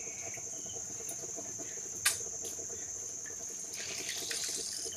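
Crickets chirring steadily, with faint sloshing and squelching of hands washing mushrooms in a pan of water. A single sharp click about two seconds in.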